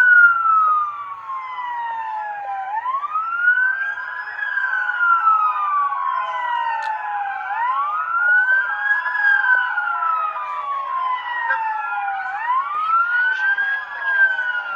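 Police siren wailing in slow cycles. Its pitch climbs quickly, then slides down over about three seconds, repeating about every five seconds, three full cycles in all.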